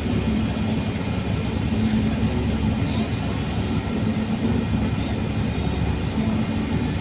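Steady low rumble of an air-conditioned bus running, heard from inside the passenger cabin, with a low hum coming and going and a faint steady high whine.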